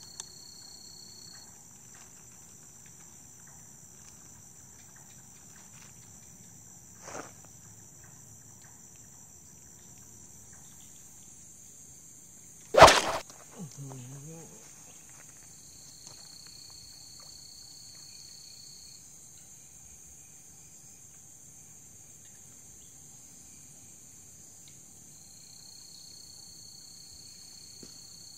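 Steady high-pitched chorus of night crickets, with a second insect's thin buzz starting and stopping a few times. One sharp, loud knock comes about thirteen seconds in, and a softer one about seven seconds in.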